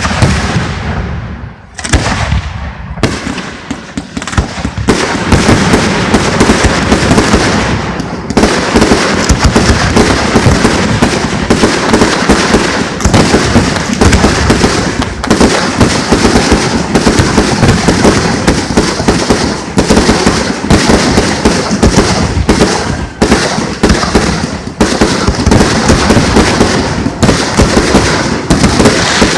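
Fireworks display: a few separate loud bangs echoing at first, then from about five seconds in a dense, continuous barrage of rapid bangs and crackle.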